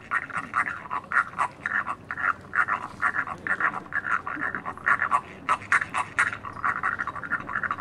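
Small hand-held fiddle bowed in quick, short strokes that follow one another several times a second.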